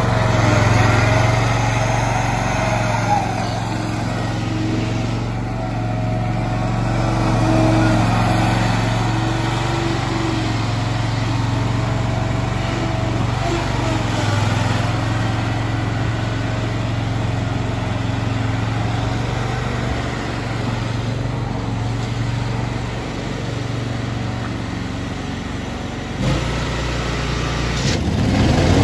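Ferris IS7000Z zero-turn riding mower's engine running steadily as the mower is driven and turned. The engine note rises briefly near the end.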